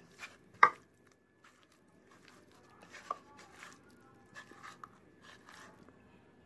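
A hand squeezing and turning raw prawns in a chilli and spice masala in a bowl: soft, wet squishes and squelches at irregular moments, with one sharper smack about half a second in.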